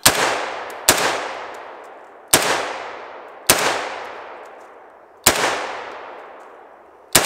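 Six semi-automatic shots from a Molot Vepr AK-308 rifle in .308, fired at an uneven pace about one to two seconds apart, each followed by a long echo that fades out.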